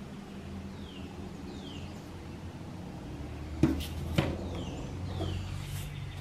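Two sharp clicks a little over halfway through as a small metal tool is handled against a wooden handle scale while epoxy is spread on it, over a steady low hum. Faint short falling chirps come a few times.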